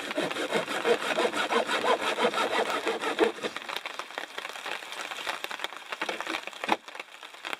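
Hand pruning saw cutting through a thin branch with quick back-and-forth strokes, heaviest for the first three seconds or so, then lighter strokes.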